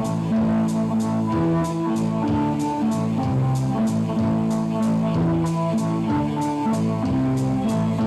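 Live band music: held, droning notes that shift in a repeating pattern over a steady ticking beat.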